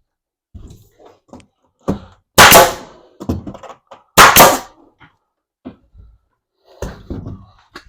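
Two loud, sharp thunks against plywood about two seconds apart, with lighter knocks and handling sounds around them, from tacking the plywood down onto the benchwork.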